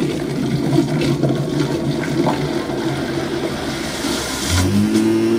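High-power American-made countertop blender running at full speed, puréeing cucumber, onion and garlic with vinegar and olive oil into a dressing: a loud steady motor hum under a churning, rushing liquid sound. About four and a half seconds in, the motor note shifts lower as the blender begins to wind down.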